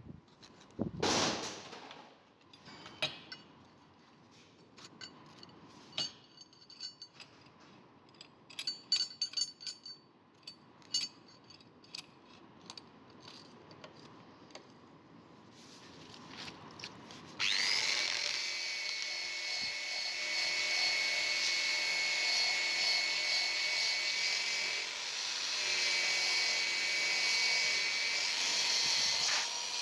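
Scattered knocks and clicks as the wrench and tools are handled, then, a little over halfway through, an electric drill with an abrasive wheel starts suddenly and runs steadily with a high whine, scrubbing rust off the old steel wrench; its pitch dips briefly partway through.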